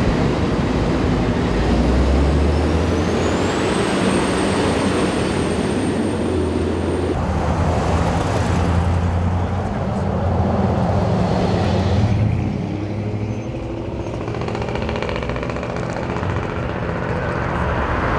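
Steady freeway traffic and vehicle engines running, with a low engine drone underneath. A thin high whine rises about two and a half seconds in and holds for a few seconds. The noise drops suddenly about twelve seconds in.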